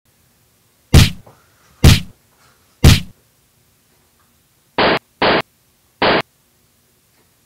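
Three loud punch-like whacks about a second apart, then three short hissing bursts that start and stop abruptly.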